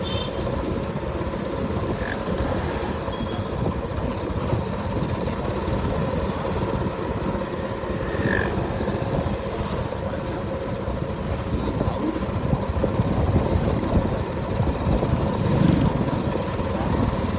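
Steady low rumble of wind and motorcycle engine while riding, picked up by an earbud microphone inside a helmet, with traffic around and a couple of short high beeps.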